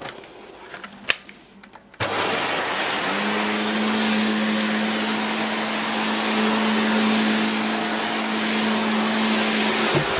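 Shark Powered Lift Away NV681UKT upright vacuum cleaner switched on about two seconds in after a few handling clicks. The motor starts suddenly, its hum rising in pitch for about a second, then runs steadily with a rush of air.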